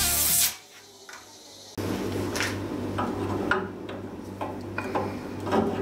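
Background music cuts off half a second in; then, over a steady low hum, metal parts clink and knock as a machined part is handled and test-fitted.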